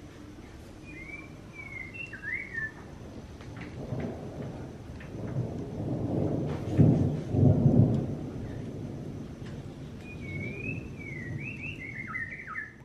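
A low rumble swells over a few seconds, peaks about two-thirds of the way through and fades again. A songbird sings a short warbling phrase near the start and another near the end.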